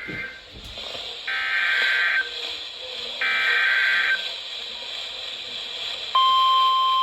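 Emergency Alert System SAME header: the end of one short burst of warbling digital data, then two more bursts under a second each, with about a second between them. A steady alert tone begins about six seconds in and holds. The header and tone open a new broadcast weather warning.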